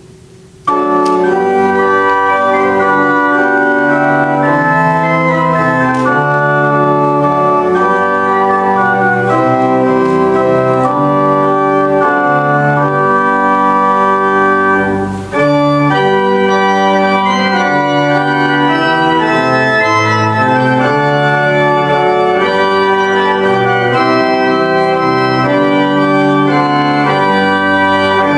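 Church organ playing a hymn in sustained full chords. It starts about a second in and breaks briefly about halfway through, between phrases.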